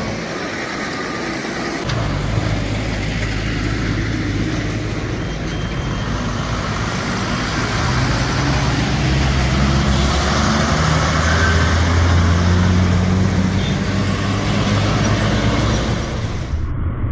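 Lorry engines running close by amid passing road traffic: a steady low engine hum with road noise, growing louder a little after halfway.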